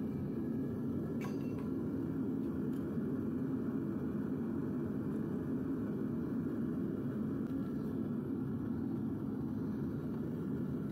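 Propane furnace burner running steadily with a low, even rumble. A few light metal clinks in the first three seconds as copper pieces are dropped into the crucible with tongs.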